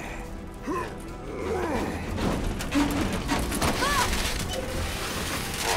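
Cartoon soundtrack: dramatic background music with metallic clanks and creaks and a few short strained cries from the robots.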